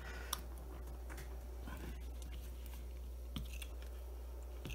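Faint, scattered clicks and rustles of a potentiometer and jumper wires being handled and pressed into a plastic solderless breadboard, over a steady low hum.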